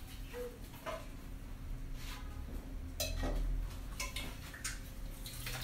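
Light clinks and taps of cookware, about half a dozen spread over a few seconds, over a low steady hum.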